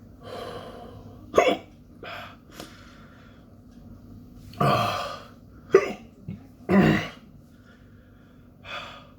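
A man hiccuping and coughing from the burn of a very hot chili pepper. Sharp, short hiccups come about a second and a half in and near six seconds, longer coughs around five and seven seconds, and heavy breaths in between.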